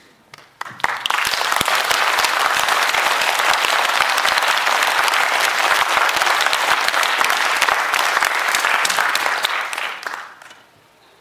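Audience applauding, the clapping breaking out about a second in and dying away near the end.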